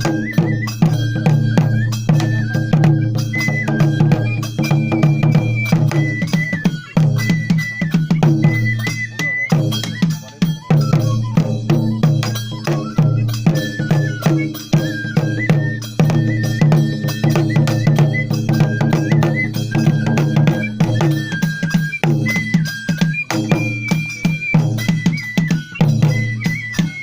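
Kagura festival music: fast, dense drumming with clanging metal percussion and a high flute melody moving in steps.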